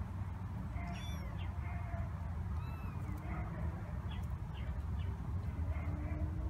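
Several 26-day-old kittens mewing: short, high-pitched mews scattered through, one after another, over a steady low hum.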